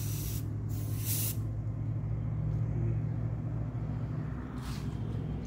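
Aerosol spray can hissing in short bursts, twice in the first second and a half and once more near the end, over a steady low hum.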